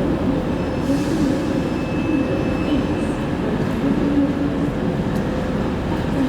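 A train running through a station, a steady loud rumble with a faint high wheel squeal in the first half.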